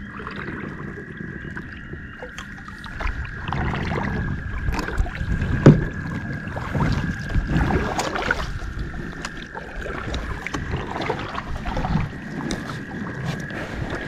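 Kayak paddling: a paddle swishing and splashing through the water in irregular strokes alongside a sit-on-top fishing kayak, with a sharp knock a little before the middle. A faint steady high tone runs underneath throughout.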